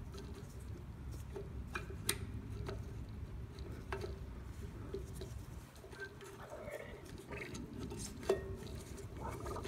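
A few light, scattered clicks and taps of small metal and plastic parts being handled as the choke and throttle linkage is fitted onto the carburetor of a Briggs & Stratton 140cc OHV engine, over a faint low background hum.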